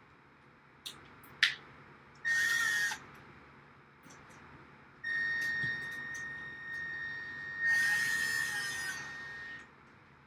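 Two sharp clicks, then a power drill running in two bursts, a short one and then a longer one of about four and a half seconds, each with a steady high motor whine; a rougher grinding noise rises over the whine for a moment in each run.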